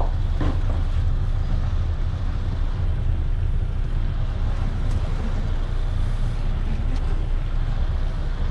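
Truck's diesel engine running steadily at low revs, a deep rumble heard from inside the cab as the truck manoeuvres slowly.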